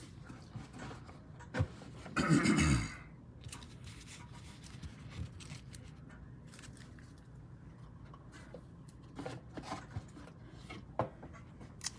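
Trading cards and card boxes being moved around and cleared off a table: one louder scrape about two seconds in, then scattered light clicks and taps.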